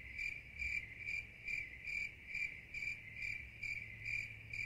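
Crickets chirping: a steady high trill that pulses about twice a second.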